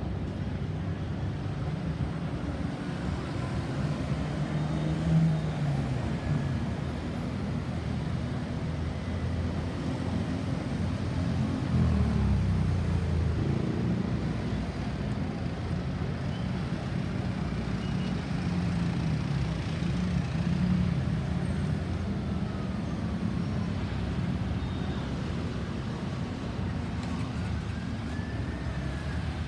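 Steady road traffic, cars and trucks passing with engine rumble and tyre noise that swells as each goes by. Near the end a faint rising-then-falling wail begins, the start of a distant siren.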